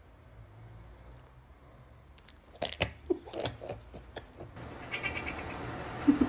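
Domestic cat meowing: a few short calls in quick succession from about two and a half to four seconds in, and one more brief call near the end over a steady background hiss.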